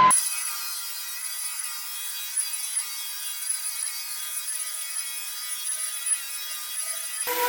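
Floor sanding machine running steadily on a wooden floor, with a constant whine and a thin sound that has no bass.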